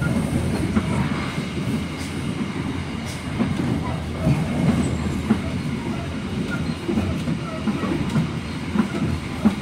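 Kutojaya Selatan passenger train running: a steady low rumble, with a few sharp knocks of the wheels over rail joints.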